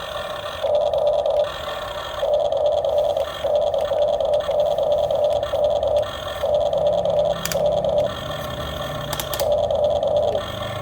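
RC model excavator's small electric motor and hydraulic pump whining in short on-off spurts as the controls are worked, with a couple of sharp clicks in the second half.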